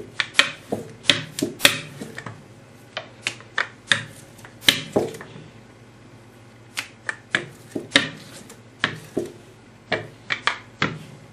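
Irregular sharp clicks and knocks of hands and a plastic rolling pin working a thin sheet of fresh pasta dough on a granite countertop, with a brief lull midway.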